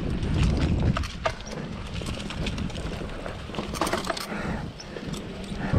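Samebike LO26 electric folding bike ridden over a bumpy dirt trail: a low rumble of tyres and air with irregular clicks and rattles from the bike as it goes over the bumps.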